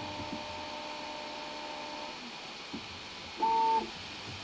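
Snapmaker Artisan 3D printer's stepper motors whining as the print head works through its automatic heated-bed leveling probe points. A steady two-tone whine lasts about two seconds, a faint tap follows, and a short, louder burst of motor tone comes near the end as the head moves to the next point.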